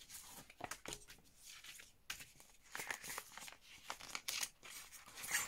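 Clear plastic packaging rustling and crinkling as it is handled, with light, irregular clicks of thin metal cutting dies.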